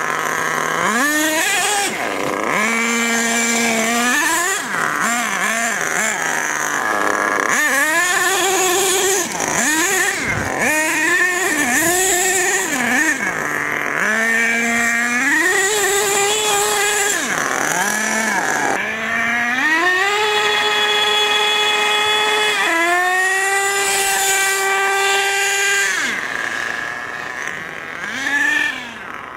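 HPI Savage RC monster truck's 3.5 cc two-stroke nitro engine, revved hard again and again, its pitch climbing, holding and dropping, with a longer full-throttle run about two-thirds through. The engine is tuned rich on the high-speed needle.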